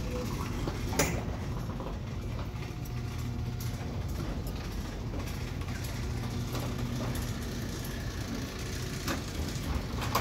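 A sectional garage door rising on its tracks, driven by an overhead electric garage door opener. The motor and rollers make a steady low rumble, with a few clicks and clunks along the way.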